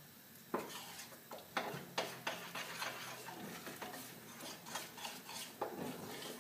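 Béchamel sauce with sliced mushrooms being stirred in a stainless steel saucepan: a utensil scraping round the pan, with several sharp knocks against its side at uneven intervals.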